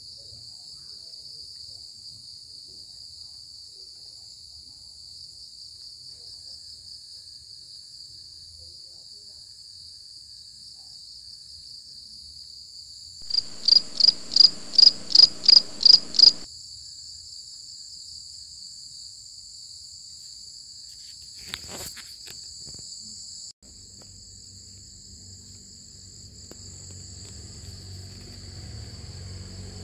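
Night insect chorus, a steady high-pitched trill. About halfway through, one close insect gives a run of about nine loud chirps over three seconds. A couple of faint clicks follow, and a low rumble creeps in near the end.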